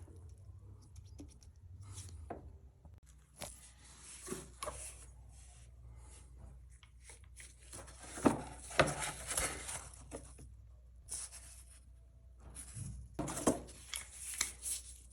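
Irregular clicks, knocks, scrapes and rustling from hands working with tools and parts, busiest about halfway through and again near the end, over a faint low hum.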